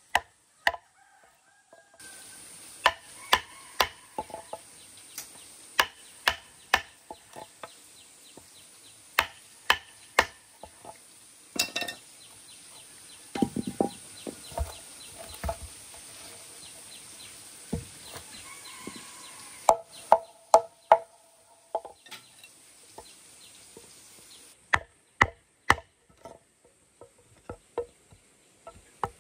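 Sharp knocks of a wood chisel cutting chips out of a log being hollowed into a trough, coming in irregular runs, with chickens clucking now and then.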